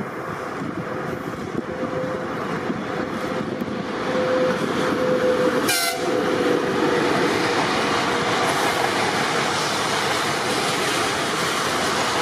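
Train passing close by, its rolling noise swelling about four seconds in and staying loud, with one short sharp crack just before the middle and a faint steady tone under it.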